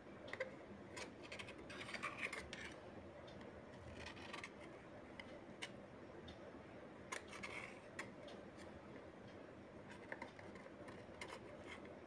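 Metal knife scraping and clicking against an aluminium idli stand plate as steamed idlis are prised loose, in short scattered scrapes and light taps.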